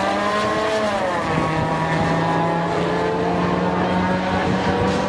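Engines of a Smart car and a Ford Mustang drag racing at full throttle: the pitch rises, drops briefly about a second in at a gear change, then climbs slowly again.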